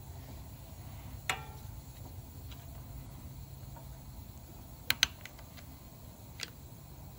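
Small metal parts and a hand tool clicking against the stator plate and points of a Honda CT70 engine as the ignition wiring is fitted. There is a single ringing clink about a second in, a sharp double click near the middle followed by a few light ticks, and one more click near the end.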